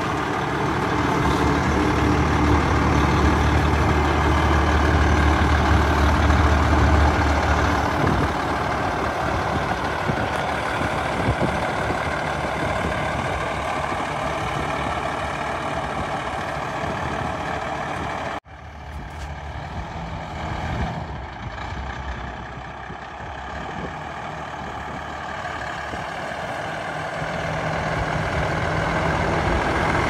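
Combine harvester running through a corn field, a dense steady drone of engine and threshing machinery with a strong low hum at first. It cuts off abruptly a little past halfway, comes back quieter, and builds up again toward the end.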